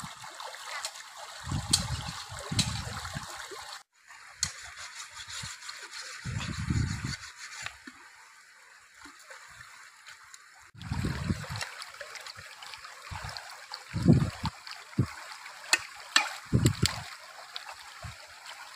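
Shallow stream running over rocks, with splashing and sloshing as a plucked chicken is rinsed and handled in the water. A few dull low bumps come and go throughout.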